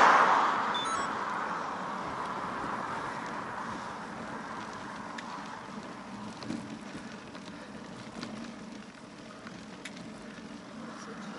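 A passing van's tyre and engine noise fading away over the first two or three seconds, leaving quiet wind and road rolling with a few faint clicks; the noise starts to swell again near the end.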